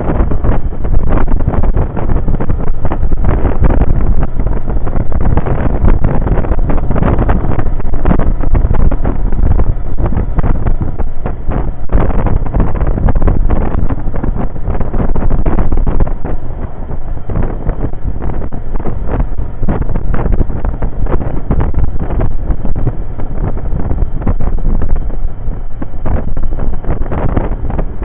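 Heavy wind buffeting on the microphone of a moving motorcycle, with the Yamaha XV750's air-cooled V-twin engine running underneath at steady cruising speed.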